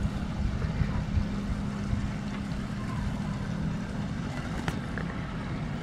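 Motorboat engine running steadily, its hum dropping slightly in pitch about two thirds of the way through, with wind rumbling on the microphone.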